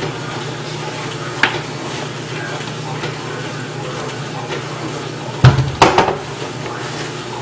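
Items being handled in a refrigerator over a steady hum and hiss: a light click about a second and a half in, then a loud knock and a short clatter of things bumping together, as from a container being pulled out and set down.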